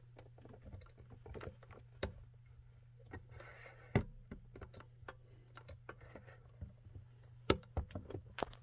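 Packaging being handled: irregular light clicks, knocks and a brief plastic rustle, with sharper taps about 2, 4 and 7.5 seconds in, over a steady low hum.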